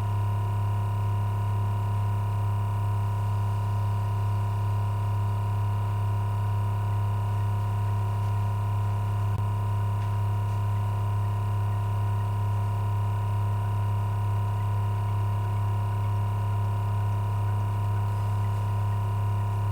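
Thermoacoustic Stirling engine with a rubber-membrane power unit running on stored heat with the burner out, giving a steady low hum with a fainter higher tone above it.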